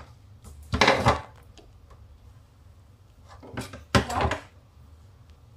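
Kitchen knife cutting through raw lamb liver onto a plastic cutting board: two short bursts of knocking and scraping, about a second in and again about four seconds in, with a few light clicks between them.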